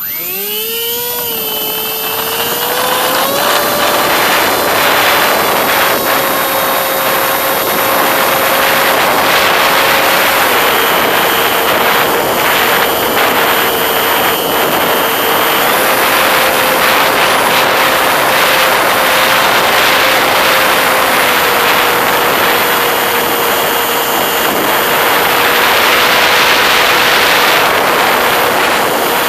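Radio-controlled model airplane's motor and propeller, heard from a camera on board. The motor spins up suddenly as the throttle opens for the takeoff run, rising in pitch over the first few seconds. It then holds a steady high drone under rushing wind, its pitch stepping down and up slightly a few times as the throttle is adjusted in flight.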